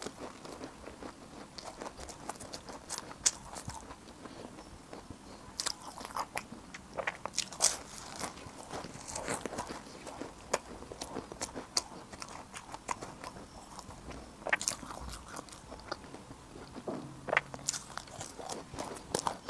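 Close-miked eating: crunchy bites and chewing, with irregular sharp crackles and wet mouth clicks.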